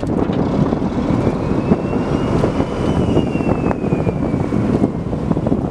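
Fishing boat's engine running steadily under heavy wind buffeting on the microphone. A faint high whine rises and then falls in pitch over a few seconds in the middle.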